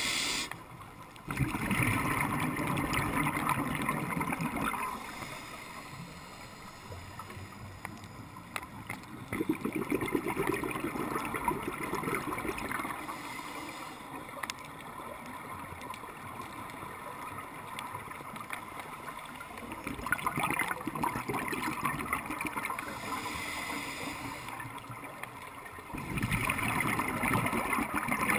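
Scuba diver breathing through a regulator underwater. Four bursts of bubbling exhaust, each a few seconds long, alternate with quieter stretches of hiss.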